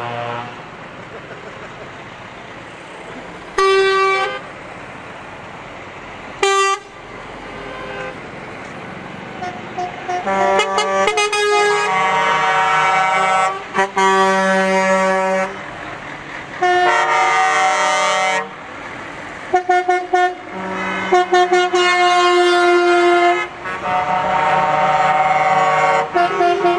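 Truck air horns sounding as a convoy of heavy trucks drives past, with truck engines running underneath. There are two short blasts in the first seven seconds. From about ten seconds in come long, overlapping horn blasts, each sounding several pitches at once like a chord.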